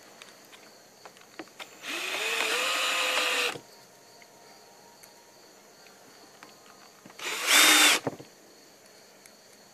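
Cordless drill driving screws into a wooden frame, run twice. The first run lasts about a second and a half and rises in pitch as the motor speeds up. The second, about five seconds later, is shorter and louder.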